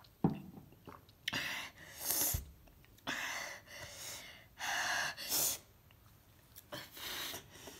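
A person breathing hard in quick, hissing gasps through an open mouth, about six or seven in a row, from the burn of a freshly eaten habanero pepper. A short knock comes just before the breaths start.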